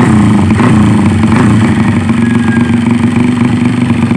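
Suzuki Smash 115's single-cylinder four-stroke engine running loud and steady at idle through a Daeng Sai 4 open exhaust pipe.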